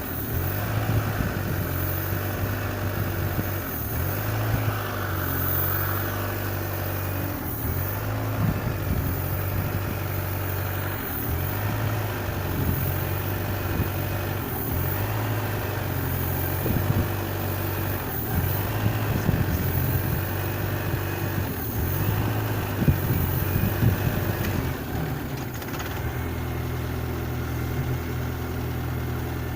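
Peugeot 307 CC's 1.6 16v four-cylinder petrol engine running at a rough, uneven idle, its note wavering and stumbling for most of the time, then settling steadier near the end. The rough idle is one that a new original throttle body has not cured; the owner finds the engine runs fine with the throttle disconnected.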